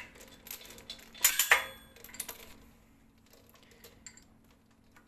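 Metal clinking and rattling of a carabiner being worked by hand, its gate pushed open under load: a quick cluster of sharp clinks about a second in, a lighter one shortly after, then faint ticks.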